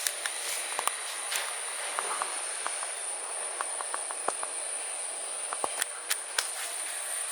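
Insect chorus: a steady high-pitched shrilling that holds on one pitch throughout, with scattered short clicks and chirps over it.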